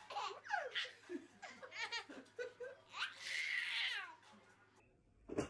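Baby laughing in a run of short giggling bursts, building to one longer, louder belly laugh about three seconds in, then cut off abruptly near the end.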